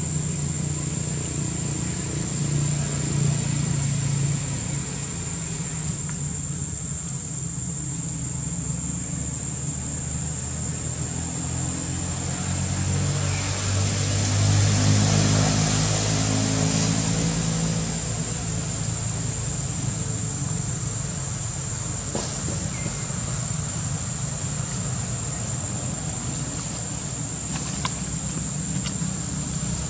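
A motor vehicle's engine running with a low hum that swells about halfway through and then falls back. A steady high-pitched whine sits above it.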